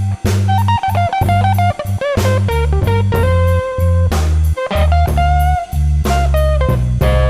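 Blues music: electric guitar playing bent, sustained lead notes over bass and a drum kit.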